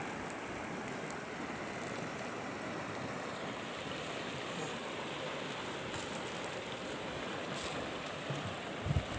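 Steady rush of a rocky river's flowing water, with a few faint ticks and a brief low thump near the end.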